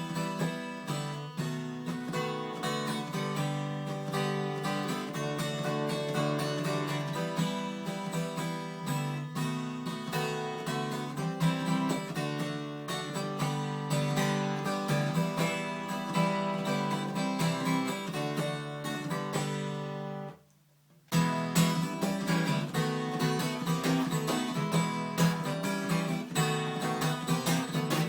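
Yamaha FG340 Mark 1 steel-string acoustic guitar strummed in chords. The playing stops for about half a second roughly two-thirds of the way through, then starts again.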